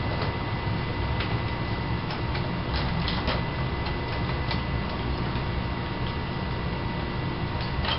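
Steady low background hum and hiss, with a few faint, irregular clicks scattered through it.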